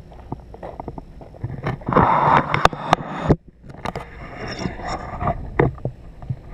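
Handling noise of a moving camera with irregular knocks and scrapes, and a dense rushing burst about two seconds in that cuts off suddenly, over a low steady rumble.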